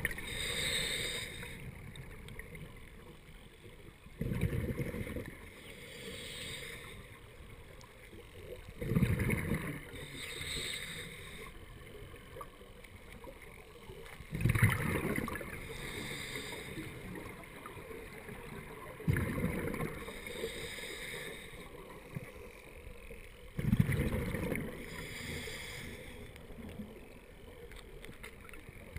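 Scuba diver breathing through a regulator underwater. A burst of exhaled bubbles comes about every five seconds, with a quieter hiss of breathing in between the bursts.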